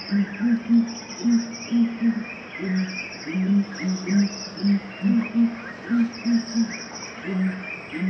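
Nature ambience: an insect trilling in short, high pulsed bursts, birds chirping, and a low call repeating several times a second.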